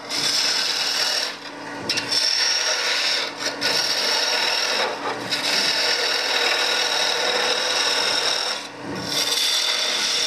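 Gouge cutting a spinning wood blank on a lathe: a steady hissing scrape as shavings peel off, broken by several brief pauses where the tool lifts from the wood.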